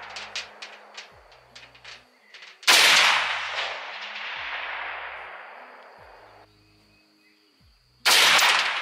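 Two rifle shots about five and a half seconds apart, one a little under three seconds in and one near the end. Each is a sharp crack followed by a long echo that fades over a few seconds.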